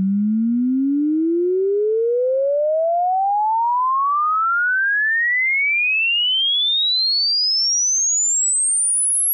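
A pure sine tone sweeping smoothly and evenly upward in pitch at a constant level, from a low tone to a very high whistle. It is a sine-sweep test signal played alone, the reference half of an auditory masking demonstration.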